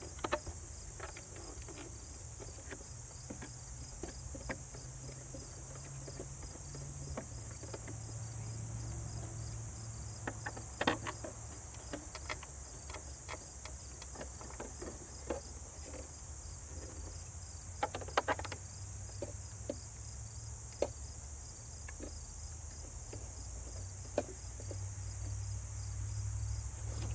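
Scattered small clicks and knocks of hand work on a DeWalt 735 thickness planer, as the three red thumb screws of its dust cover go back in. The sharpest knocks come about 11 and 18 seconds in. Under them runs a steady high-pitched whine and a low hum.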